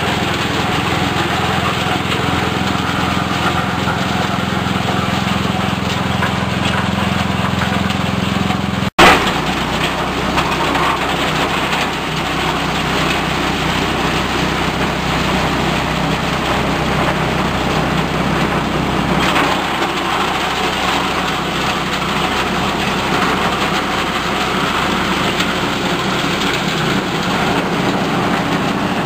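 Small engine-driven compost shredder running steadily while green leaves are fed in and chopped. About nine seconds in, the sound breaks off with a sharp click and carries on as another small engine-driven shredder runs.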